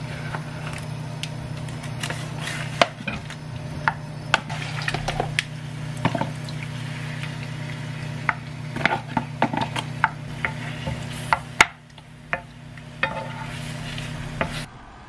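Wooden chopsticks stirring and scraping saucy rosé tteokbokki in a frying pan on a gas stove, with many short clicks and knocks of utensils against the pan and the plastic container, over a soft sizzle and a steady low hum.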